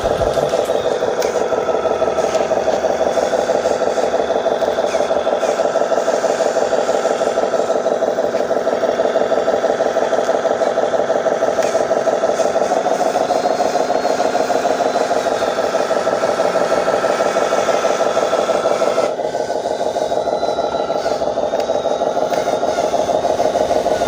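Remote-control dump truck running: a steady, rapidly pulsing engine-like sound that holds level. It changes tone about 19 seconds in, when its upper part drops away.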